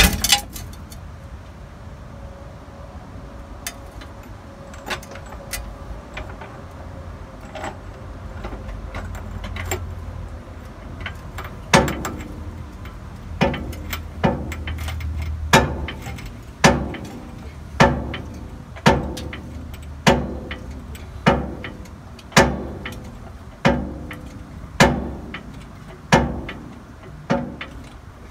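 A series of sharp metal knocks, about one every second, each ringing briefly, from work on the van's front suspension, beginning about halfway through and stopping just before the end.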